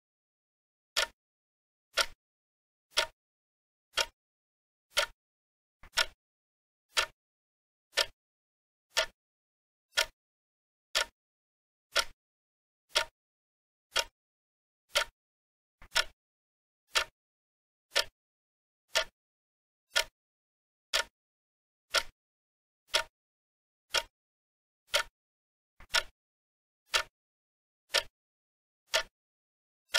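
Clock-tick sound effect of a countdown timer: one short, sharp tick each second, evenly spaced with silence between, marking the time allowed for answering.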